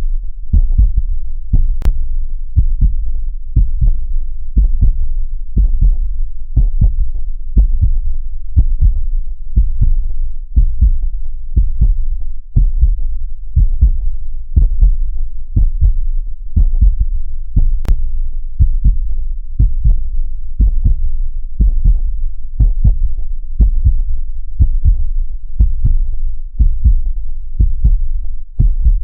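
Heartbeat sound made to resemble what a baby hears in the womb: an even rhythm of short, low, muffled beats, a few per second, with no change in pace.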